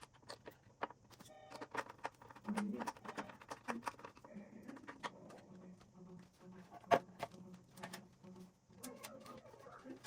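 Irregular light clicks and knocks of hand work on motorcycle parts, over a faint low hum. The loudest knock comes about seven seconds in.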